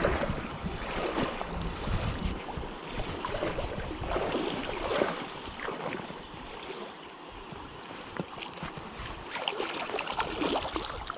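Flowing creek water with wind on the microphone. Near the end a hooked wild brown trout splashes at the surface.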